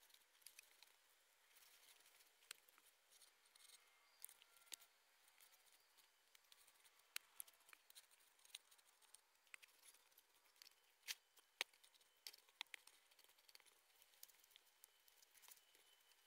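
Faint, irregular small clicks and snips of close handwork, scattered throughout, with two sharper clicks about eleven seconds in.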